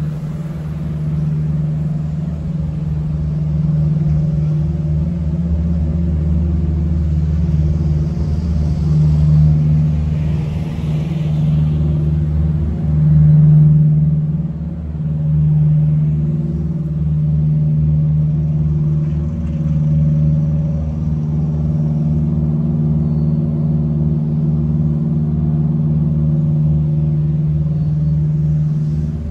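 Vehicle engine running steadily at one low pitch, with a rumble beneath it; it swells to its loudest about halfway through.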